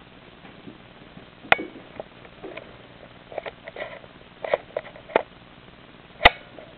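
A kitten's paws thumping and scrabbling on a rag rug as it pounces on and bats a small stuffed toy mouse: scattered soft knocks, with one sharper knock just after six seconds in the loudest.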